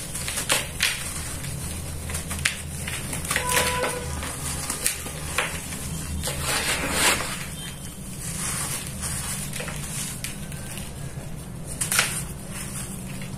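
Hands crumbling and squeezing dry red dirt, a soft steady crunch and trickle of falling powder broken by sharper crunches as clumps break, about every second or two. A steady low hum runs underneath.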